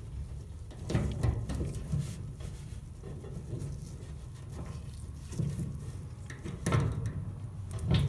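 Small screwdriver scraping and clicking against the metal push-on keeper on a dryer drum support roller's shaft as it is pried up, with a few light clicks at irregular moments over a low handling rumble.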